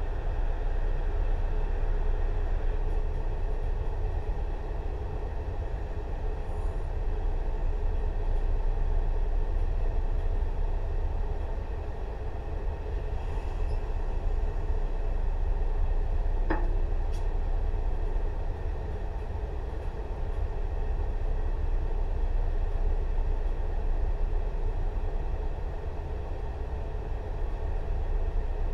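Tobu 6050-series electric train standing at a station with its on-board equipment running: a steady low hum and drone. A single short, rising squeak comes about halfway through.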